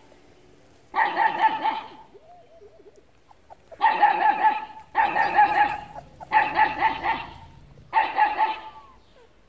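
A dog barking in quick runs: one run about a second in, then four more in close succession from about four seconds in, each a run of several barks.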